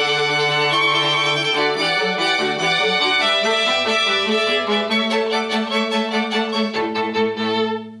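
String quartet of two violins, viola and cello playing, with a run of short repeated bow strokes in the last few seconds before a final chord cuts off near the end, leaving the room's reverberation to die away.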